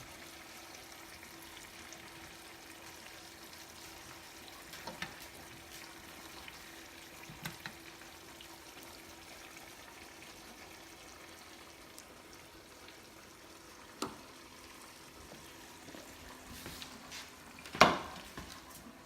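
Faint sizzling from a hot pan of food over a low steady hum, with a few utensil clinks and one sharper clatter near the end.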